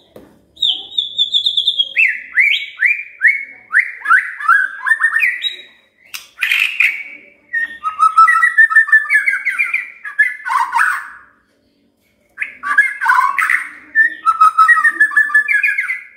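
White-rumped shama (murai batu) singing. It opens with a run of quick descending slurred whistles, then moves into varied, rapid whistled phrases, with a pause of about a second some eleven seconds in.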